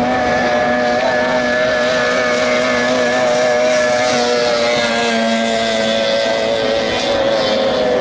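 Several 30 hp outboard-powered tunnel racing boats running flat out, a steady, loud engine whine from more than one motor at once. As the nearest boat goes by, the pitch sinks a little a few seconds in.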